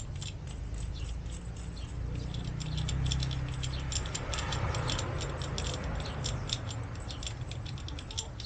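Many small clicks and light rattles from handling a bicycle dropper seatpost and its cable as it is fitted into the frame's seat tube, over a low handling rumble.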